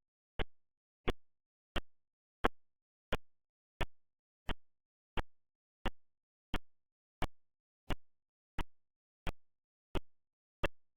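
A short plop repeating at an even pace, about three every two seconds, with dead silence between the hits.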